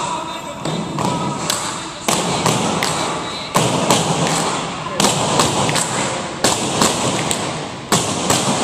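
Tinikling poles struck on the hardwood gym floor and knocked together, a steady beat of sharp wooden knocks coming in repeated groups of three.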